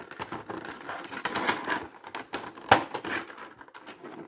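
Clear plastic blister packaging crinkling and clicking as it is handled and pulled off a plastic figure tray, with one sharp snap about two-thirds of the way through.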